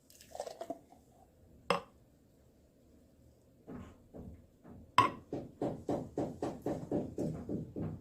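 Kitchen utensils knocking on dishes: a short clatter, a sharp knock a little under two seconds in, then from about four seconds a steady run of even knocks, about three a second.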